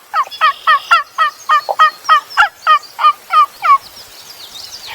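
A long, loud series of turkey yelps, about three to four a second, each note dropping in pitch; the series stops a little before the end.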